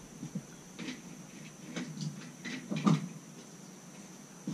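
A semi-automatic pistol fires once at the very end, a sharp, loud shot. Before it there are only a few faint, scattered pops and knocks.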